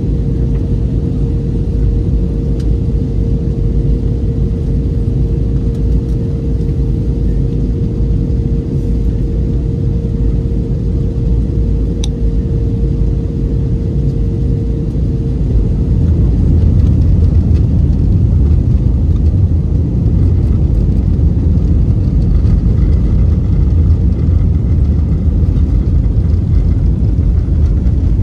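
Cabin noise inside an Airbus A320-family airliner on descent: a steady low rumble of jet engines and airflow. A steady hum stops about halfway through, and soon after the low rumble grows a little louder.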